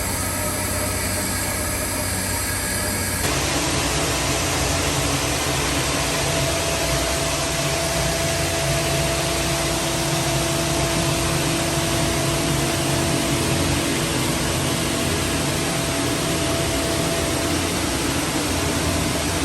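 Steady machinery noise: an even hiss with a faint hum and a few steady tones. It turns slightly louder and fuller about three seconds in.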